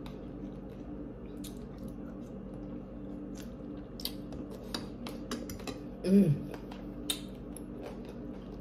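Eating sounds: scattered light clicks of a metal fork against a bowl and mouth noises while chewing boiled chicken, over a steady low hum. About six seconds in there is one short hum from the eater, falling in pitch.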